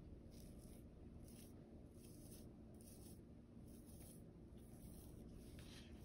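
Faint, soft scrapes of a butter knife spreading and smoothing the cream topping of a cheesecake, in a run of short strokes at an uneven pace.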